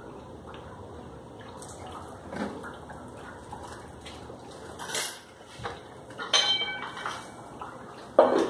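Lids being put on cooking pots: a few scattered clinks and knocks, a ringing clink about six seconds in, and a loud clank near the end as a lid is set down on a pot.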